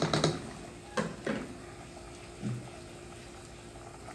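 Wooden spoon stirring chicken in a stainless steel pot, knocking against the pot a few times in the first second and a half. The sauce simmers quietly underneath, with a faint steady hum.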